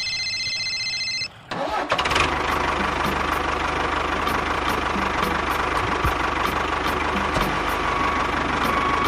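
A high steady beep, then about one and a half seconds in a small engine starts and keeps running steadily with a low pulsing beat.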